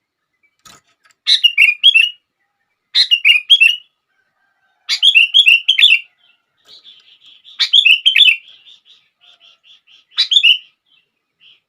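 Sooty-headed bulbul (kutilang) singing: five short phrases of quick, bubbly whistled notes, a second or two apart, with a run of softer rapid notes between the last two phrases.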